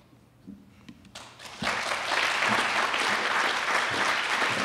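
Audience applauding, beginning about a second in and building within half a second to steady, full clapping.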